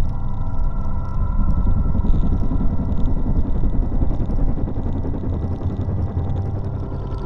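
A dense low rumbling drone, swelling slightly midway, with a few steady high tones held above it, in an ambient sound-art soundtrack.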